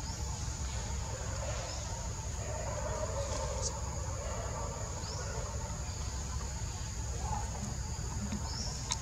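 Outdoor ambience: a steady high-pitched insect drone, with a constant low rumble and a few faint bird chirps.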